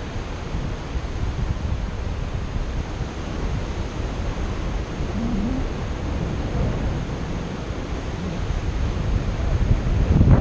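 Airflow buffeting the microphone of a camera on a paraglider harness in flight: a steady low wind rumble that swells into a louder gust near the end.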